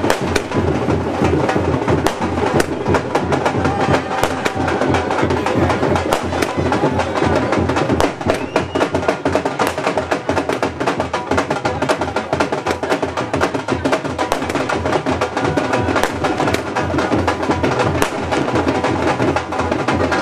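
Music driven by fast, heavy drumming, a dense run of sharp drum strikes.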